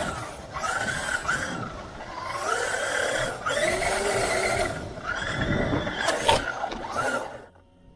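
Traxxas Unlimited Desert Racer's brushless electric motor and drivetrain whining in four throttle bursts, the pitch climbing and falling with each, heard from a camera strapped to the truck. A sharp knock about six and a half seconds in as the truck tumbles, and the whine stops about a second later.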